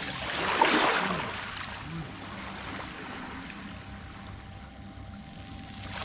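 Small waves of a calm sea washing onto a pebble beach: one wave swells and breaks about a second in and runs back, then a quieter steady wash.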